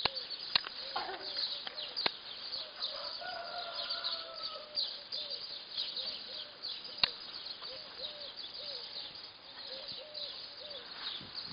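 Small birds chirping and twittering in quick, high notes, over a lower call repeated again and again. A few sharp clicks sound among them.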